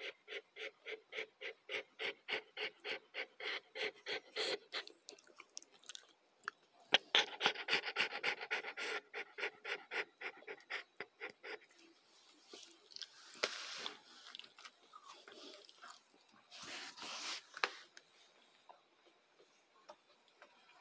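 White schnauzer nursing her week-old litter, panting fast and evenly at about four breaths a second in two long spells. A few short rustling bursts follow near the end.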